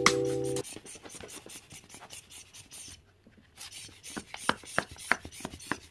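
A small corded handheld air blower running with a thin, steady hiss. It cuts out briefly about three seconds in, then runs again, while a cat's paws tap and scrape against its nozzle in quick irregular knocks.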